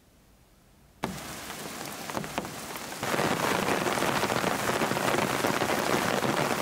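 Heavy rain falling and pattering on the ground and foliage. It starts suddenly about a second in, with a few separate drops standing out, then gets louder and denser about three seconds in.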